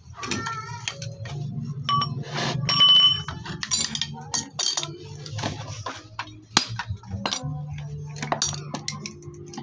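Metal tools and engine parts clinking and knocking as a Honda Dream 100 engine is taken apart by hand, a wrench and loose parts striking the aluminium engine cases. The loudest clink rings briefly about three seconds in.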